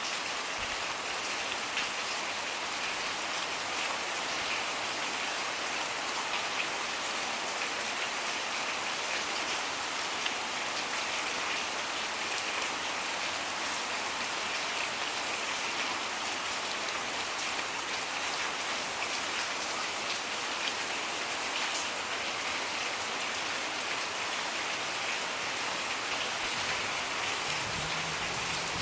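Steady rain falling, an even hiss of drops on surfaces that holds at the same level throughout.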